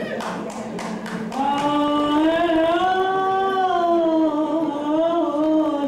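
A quick run of about six sharp strikes in the first second, then a voice singing one long held note that rises slightly and sinks back again.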